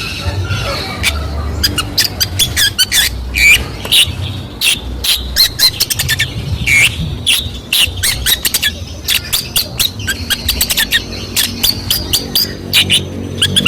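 Long-tailed shrike (cendet) singing a fast, harsh song of rapid sharp notes and squawks, packed with mimicked calls of other birds.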